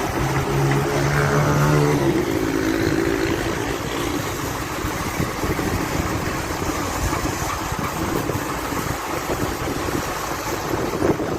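Self-loading concrete mixer truck's engine running; its note rises over the first two seconds, then settles into a steady, noisy rumble.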